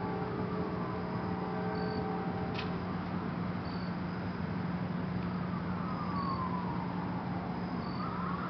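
Outdoor urban background: a steady hum of distant traffic, with a faint siren wailing down and then back up in the second half.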